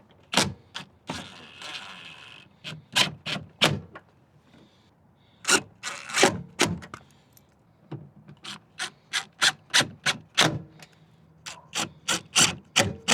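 Ratchet with a 10 mm socket running in the bolts that hold a car door speaker, a series of sharp clicks in runs, with a short scraping rasp about a second in.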